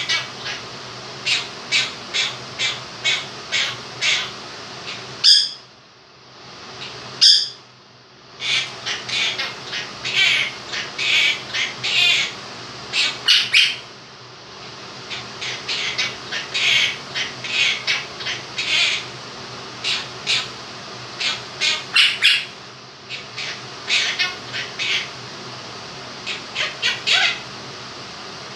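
Quaker parrot squawking in a long run of short, shrill calls, a few a second, over the steady whir of an electric fan. Two louder, sharper squawks come about five and seven seconds in.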